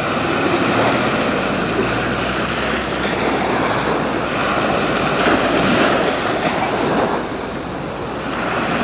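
Small sea waves breaking and washing in over shallow sand, a steady rush of surf that swells and eases, dipping for a moment late on before rising again.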